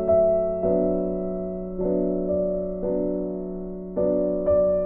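Background music: slow keyboard chords, a new chord struck about every second and left to fade.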